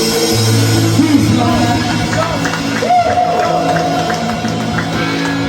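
Live rock band playing loud: bass, guitars and drums, with a long, wavering held note starting about halfway through.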